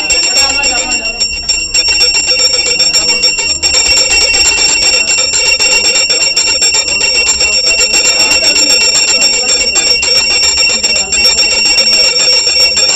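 Brass puja hand bell (ghanta) rung rapidly and without pause during the worship of the Shiva lingam, a constant bright ringing with several high tones held over the clatter of the clapper.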